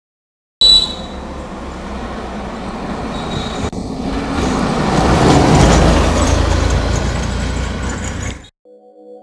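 A small van driving past on a road: engine and tyre noise that builds to its loudest about halfway through, then fades away.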